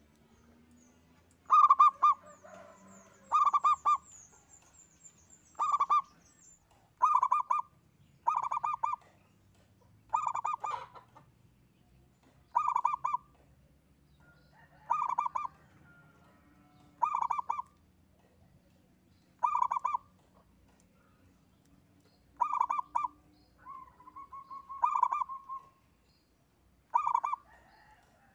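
Zebra dove (perkutut) cooing: short, rapid staccato phrases repeated about every two seconds, with one longer, drawn-out coo near the end.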